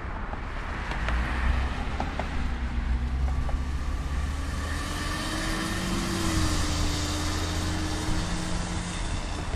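Jet airliner departing: a steady rumble, with engine hiss building about four seconds in. A low whine rises slightly, then drops in pitch as the aircraft passes about six seconds in.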